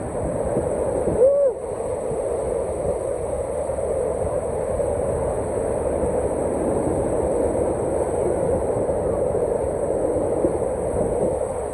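Steady rushing roar of a large waterfall, Niagara Falls, with a brief pitched sound about a second in.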